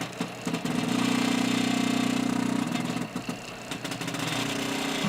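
Homemade CNC machine's motors running, a steady mechanical whine that starts about half a second in and drops out about halfway through, followed by a quieter whine at a different pitch near the end.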